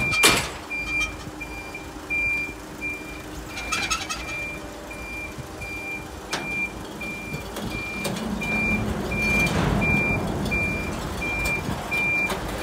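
Flatbed car-carrier truck's warning beeper sounding short, even high beeps about one and a half times a second while the truck's engine runs underneath, getting louder about eight seconds in. A sharp knock comes right at the start.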